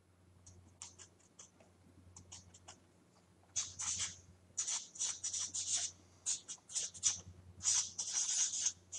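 Marker pen writing on paper: a dotted line and then a label are drawn in short scratchy strokes, faint at first and then louder and quicker from about three and a half seconds in.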